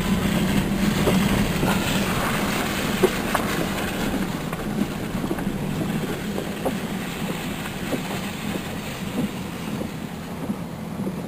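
Steady mechanical rumble of a vehicle with scattered clicks and rattles, slowly fading.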